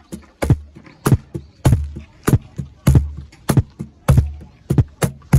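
Wooden cajon played by hand in a steady groove, about three strikes a second: deep bass tones from the middle of the front plate alternate with sharp, crisp slaps at the top edge, in a four-on-the-floor beat with slaps added.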